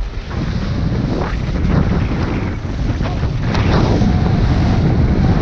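Wind rushing over the microphone of a camera skiing downhill, growing louder as speed builds, with several swishes of skis turning on packed snow.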